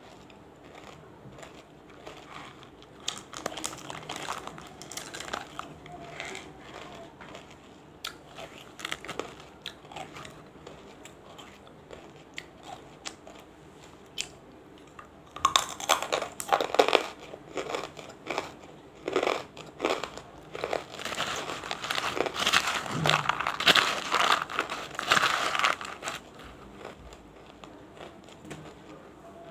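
Crunching and chewing of banslochan (tabasheer, the chalky silica found in bamboo): water-softened small pieces mixed with dry big pieces. Faint crackling at first, then louder crunching bites for about ten seconds from halfway through.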